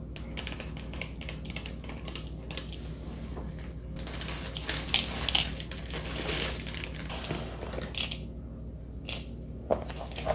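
Salad kit being made in a plastic bowl: toppings shaken out of small packets and chopped salad poured from its crinkling plastic bag, the rustling loudest between about four and eight seconds in. Near the end a fork tosses the salad, with a few sharper clicks.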